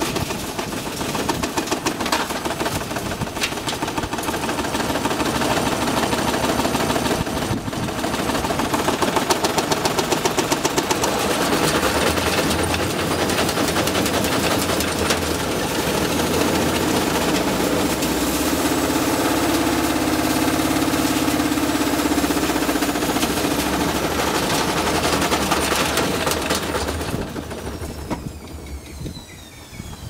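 Hotpoint front-loading washing machine's universal brush motor, wired straight to a variac at overvoltage, spinning the unbalanced drum flat out. The whole machine rattles and bangs in a fast, continuous racket over a high motor whine. Near the end the noise dies away as the motor winds down.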